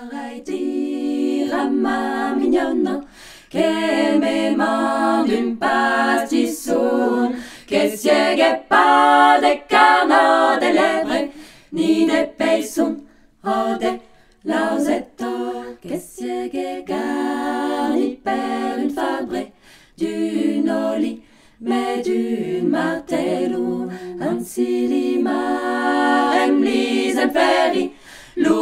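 Unaccompanied choir singing a cappella, in phrases broken by short pauses.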